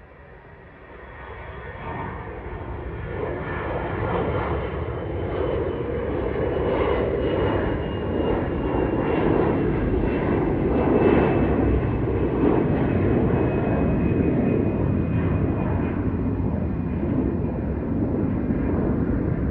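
Airbus A320-214 airliner's twin CFM56 turbofan engines at takeoff thrust as it climbs out: a broad jet roar that swells over the first few seconds and then holds steady, with a faint whine slowly falling in pitch.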